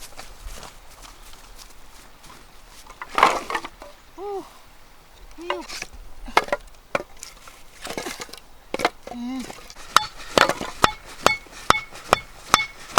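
A blade chopping on a wooden surface: scattered strikes at first, then a quick steady run of about three strikes a second in the last few seconds, each with a short metallic ring.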